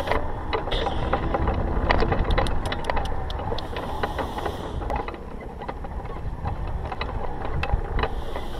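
Wind buffeting the camera's microphone as a heavy, uneven rumble, with many scattered clicks and rattles over it.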